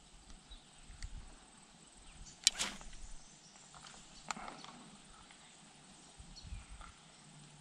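Quiet outdoor background with two sharp clicks, one about two and a half seconds in and a softer one near four and a half seconds, and a few faint ticks.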